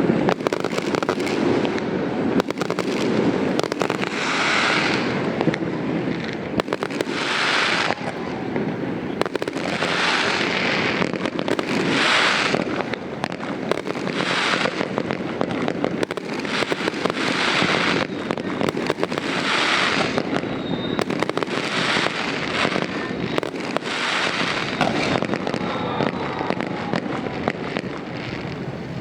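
Fireworks display going off without pause: dense crackling and popping, with a brighter hissing crackle swelling about every two and a half seconds.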